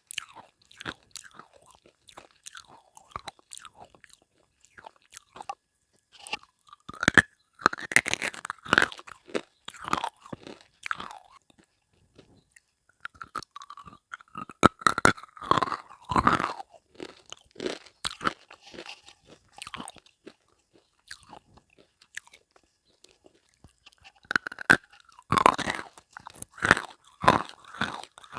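Close-miked biting and chewing of hard slate pencil and baked clay pieces: sharp, irregular crunches and crackles that come in bunches, with quieter chewing between.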